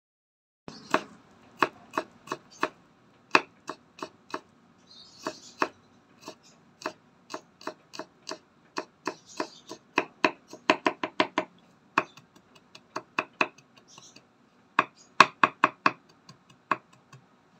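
Chef's knife mincing garlic on a bamboo cutting board: sharp knocks of the blade on the wood at an uneven pace, with quicker runs of strokes, and a few brief soft scrapes between them.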